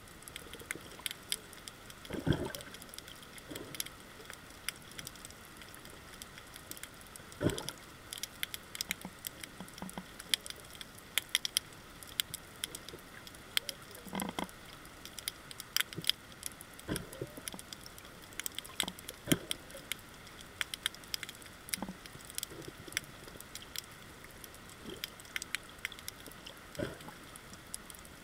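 Underwater reef ambience: a continual irregular crackle of sharp clicks, the snapping-shrimp crackle of a coral reef, broken by a few dull low thumps every few seconds.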